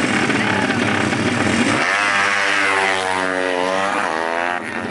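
Drag-racing motorcycle engines revving hard at the start line. About two seconds in, one bike launches and accelerates away, its engine note climbing and changing pitch as it pulls away.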